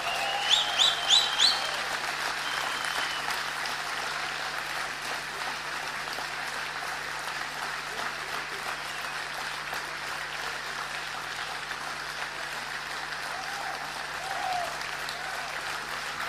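Audience applauding steadily in a hall, with four short rising whistles in quick succession near the start.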